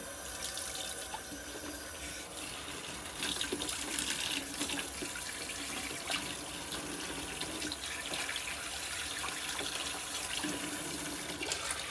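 Kitchen faucet running a steady stream of hot water into a frying pan in a stainless steel sink, splashing as the pan fills with soapy water to soak off grease.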